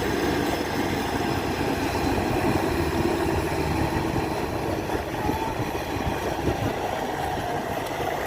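Kubota DC-93 Extra combine harvester running steadily, a continuous dense rumble and rattle from its engine and machinery.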